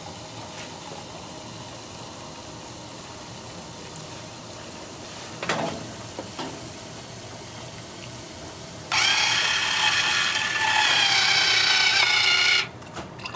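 Soda pouring from a solenoid valve into a glass, faint and steady; about nine seconds in, the drink mixer's 70 RPM DC gear motor starts turning the Lazy Susan turntable through a friction wheel, a loud steady mechanical whine that runs for about four seconds and stops suddenly as the glass reaches the next bottle.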